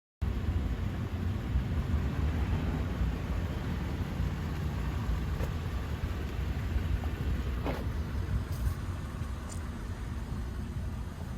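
Steady low rumble of a car running, engine and road noise with a few faint ticks.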